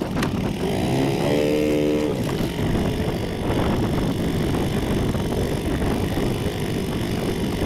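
Small outboard motor running steadily, pushing a mini boat a short way across the water.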